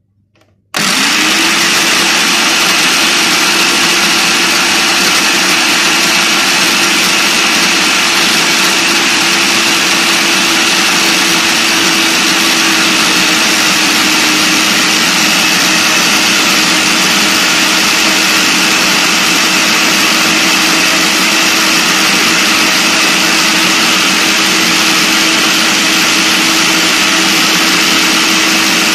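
Kenwood blender starting suddenly about a second in and running steadily at full speed, its motor whine settling at once onto one steady pitch. The sound is loud, as the blender purées green chilies, garlic, coriander, mint and yogurt into a sauce in its small grinder cup.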